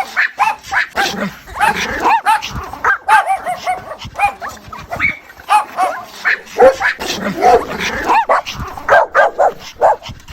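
A mother dog making rapid, high yips and whines to call her puppies: many short calls that rise and fall in pitch, coming several a second and often overlapping.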